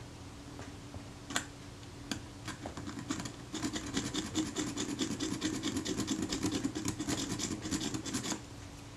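A very fine jeweler's slotting file rasping across a small metal button on a camera, cutting a screwdriver slot into a button that will not twist off. A few separate strokes come first, then a quick, steady run of filing strokes from about three and a half seconds in, which stops shortly before the end.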